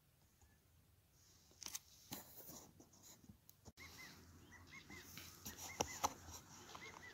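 Footsteps rustling and crunching through dry leaves and twigs, starting about a second in, with a couple of sharper snaps late on. Over them, from about four seconds in, a small bird gives short chirps, repeated irregularly.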